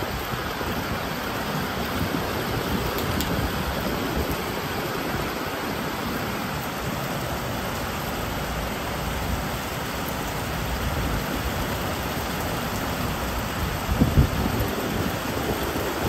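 Heavy rain falling steadily over trees and rooftops, a constant hiss with irregular low rumbling that swells about two seconds before the end.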